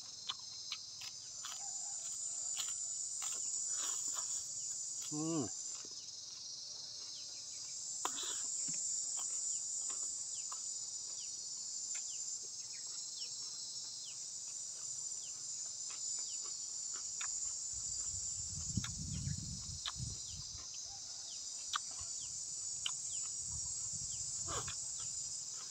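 Steady high-pitched chorus of insects chirring without a break, swelling and easing slightly, with scattered faint clicks. There is a brief low rumble about three quarters of the way through.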